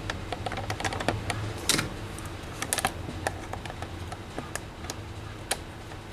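Irregular light clicks and taps of multimeter test probes being handled and touched against a laptop motherboard, a few louder about two seconds in, over a low steady hum.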